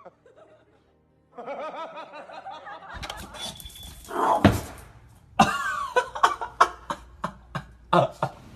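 Background music, then laughter over a run of sharp knocks or clatters during the second half.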